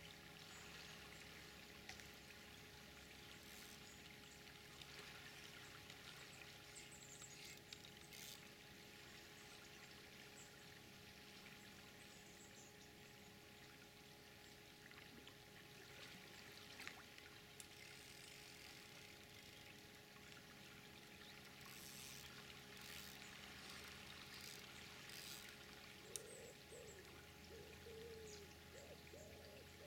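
Faint, steady sound of river water flowing.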